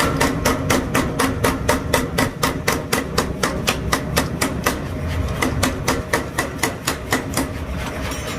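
15 kg power hammer striking steel in rapid, even blows, about five a second, over the low hum of its drive.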